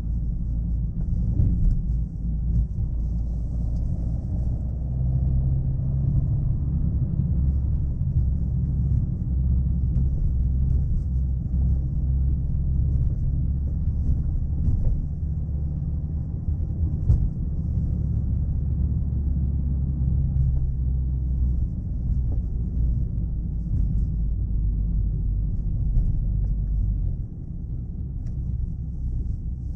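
Chevrolet Aveo being driven: a steady low rumble of engine and road noise, dropping in level near the end.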